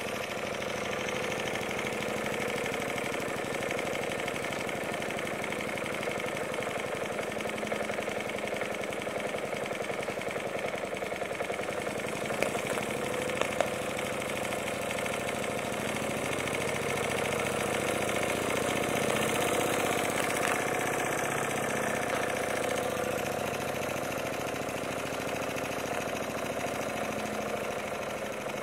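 Homemade single-cylinder model steam engine running at speed with a rapid, even beat, its burner shut off so it runs on the boiler's stored steam pressure. A few sharp clicks a little before halfway.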